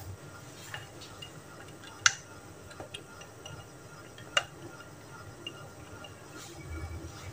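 A few light clicks and taps of a spatula against glass bowls as chopped boiled egg is scraped from a small glass bowl into a glass mixing bowl. The sharpest taps come about two and about four seconds in.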